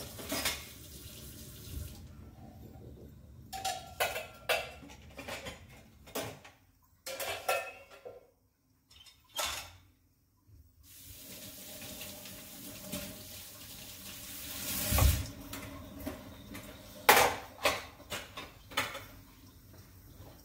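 Kitchen tap running into a stainless-steel sink while steel idli mould plates are rinsed, the water coming in stretches, with metallic clinks and clatter as the plates knock together. A dull thump about fifteen seconds in.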